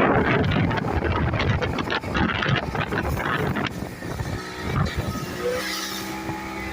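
Wind buffeting the microphone over the rumble of a motorboat under way, with steady engine hum showing more clearly in the second half.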